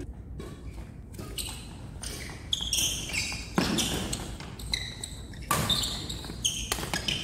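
Badminton doubles rally: a few sharp racket hits on the shuttlecock, with short high squeaks of court shoes on the hall floor between them.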